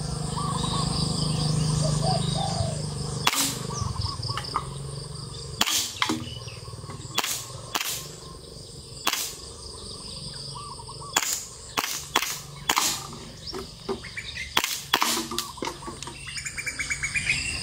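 A WE M1911A1 gas blowback airsoft pistol firing about a dozen single shots, one at a time at irregular gaps, each a sharp crack from the gas valve with the slide snapping back. The gas charge is weak and nearly used up. Birds chirp in the background.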